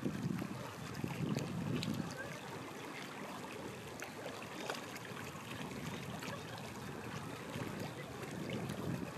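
Wind buffeting the microphone in gusts, strongest in the first couple of seconds and again near the end, over a steady hiss of lake water lapping at the shore.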